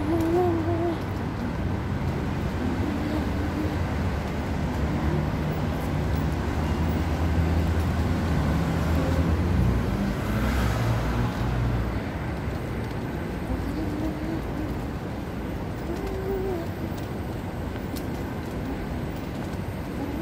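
Street traffic: a vehicle engine running close by, its low hum strongest through the first half and fading after about twelve seconds. A few short, low bird calls come at intervals.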